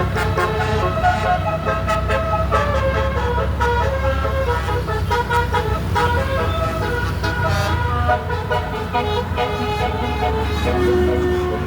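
Tour bus's telolet horn playing a running multi-note melody, the notes changing every fraction of a second, over the steady low rumble of the bus's engine.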